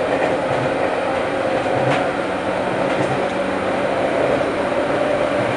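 JR 205 series electric train running at steady speed, a steady rumble of wheels on rail with a steady hum. There are a couple of faint wheel clicks about two and three seconds in.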